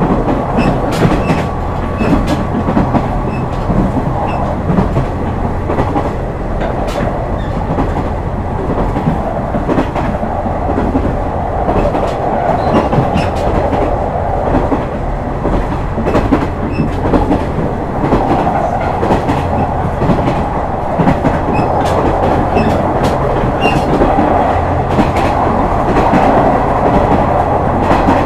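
KiHa 126 series diesel railcar running at speed, heard from inside the car: a steady diesel engine drone and rumble under the wheels, with rhythmic clicks of the wheels crossing rail joints.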